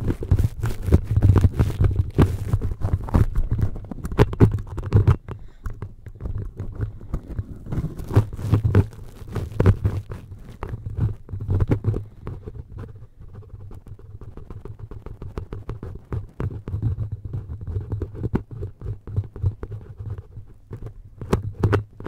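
Fingertips scratching and rubbing directly on a microphone's perforated grille: dense scratchy strokes over a deep handling rumble. The scratching eases off for a few seconds midway, then picks up again.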